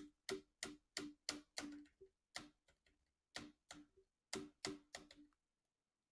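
Faint clicking on a computer as slides are clicked through: about fifteen quick, sharp clicks in irregular bunches, stopping a little after five seconds in.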